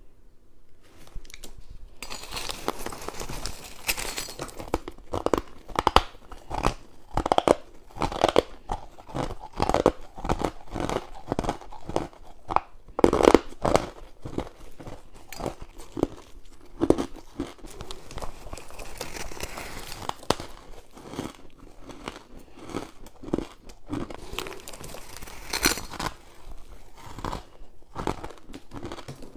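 Frost ice and crushed ice being bitten and chewed close to the microphone: a dense, irregular run of crisp crunches and crackles.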